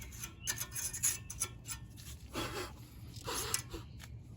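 Brake parts being scrubbed clean by hand. Rough rubbing strokes are mixed with small clicks, and there are two longer strokes in the second half.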